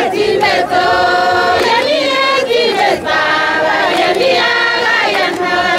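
A group of voices singing a song together in held notes.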